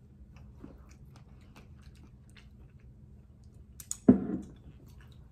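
Close-up mouth sounds of a person eating: soft wet smacks and chewing clicks. There is one loud thump about four seconds in.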